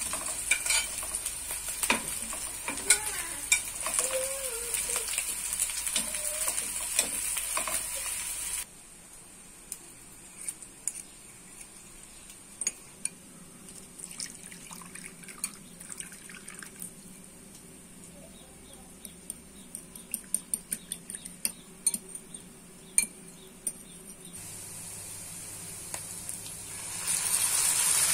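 Food sizzling in a hot pan, with many clicks and scrapes of a utensil as it is stirred. About eight seconds in it cuts to a quieter stretch of scattered clinks of utensils on dishes over a faint low hum. The sizzling hiss comes back near the end.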